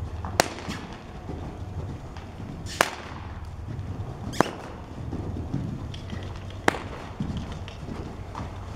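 A longe whip cracking sharply four times, roughly every two seconds, over the dull hoofbeats of a horse cantering loose on soft arena footing.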